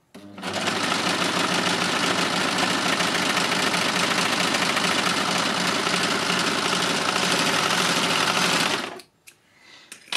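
Success Lucie overlocker (serger) running at a steady speed, sewing a three-thread flatlock seam through two layers of stretch fabric. It starts a moment in, runs for about eight and a half seconds, and stops shortly before the end.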